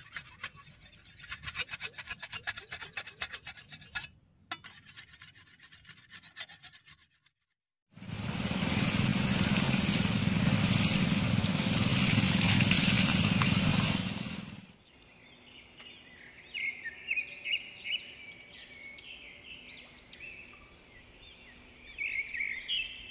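A rapid scratchy rasping, then about seven seconds of loud, steady rushing from a jet of water spraying out of a hose pipe that cuts off suddenly, followed by birds chirping.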